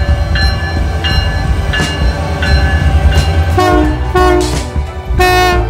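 A train passing close by, with a steady low rumble. Over it a clear ringing tone repeats about every 0.7 s, then three short, lower tones sound in the last two seconds.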